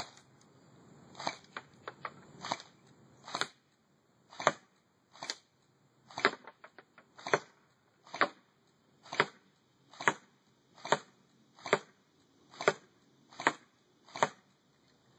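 Double Eagle AK47 airsoft rifle firing single shots, one sharp crack about every second, after a few lighter clicks in the first few seconds.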